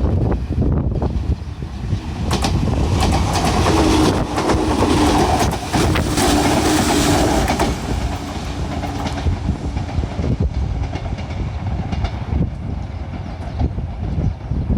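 Enshu Railway 1000 series electric train, two two-car sets coupled, passing at speed with its wheels clacking over rail joints. It builds to its loudest a few seconds in, with a steady humming tone while it goes by, then fades away in the second half. Wind rumbles on the microphone throughout.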